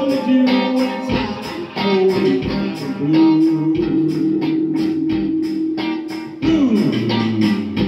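Reggae jam with electric guitar playing over a steady beat, a long held note sliding down near the end.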